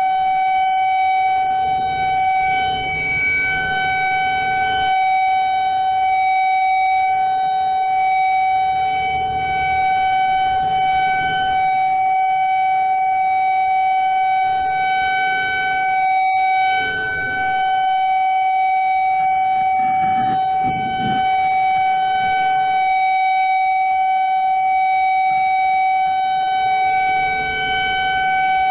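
Civil defense siren sounding a steady alert: one unwavering pitch held without a break, over a low rumbling noise.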